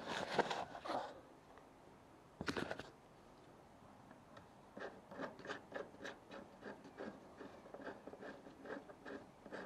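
Handling knocks and rustle as the camera is set down on the van roof, loudest in the first second with another brief bump about 2.5 s in. Then, from about 5 s in, a steady run of short scraping clicks, three or four a second, as a hand turns and unscrews the light bar's mounting fitting on the roof.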